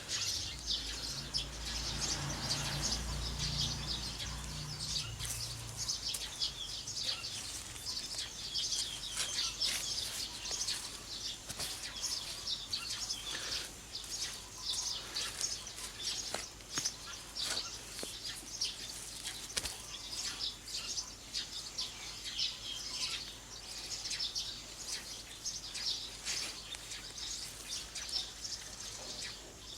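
Many small birds chirping continuously, with scattered rustles and scrapes from soil being dug through by hand. A low hum fades out in the first few seconds.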